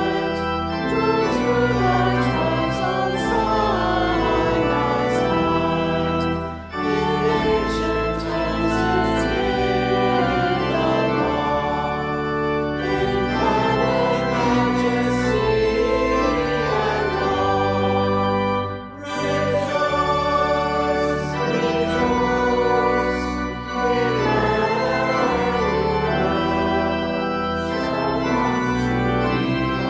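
Church organ playing a liturgical hymn in slow sustained chords, with voices singing along. There are short breaths between phrases about 7 and 19 seconds in.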